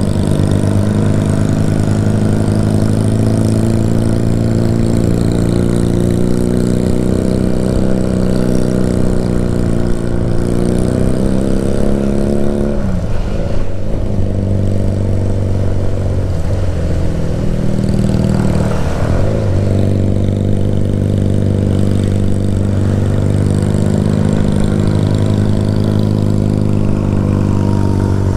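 Motorcycle engine running under load while pulling up a steep road, its note rising slowly, then dipping and recovering three times around the middle.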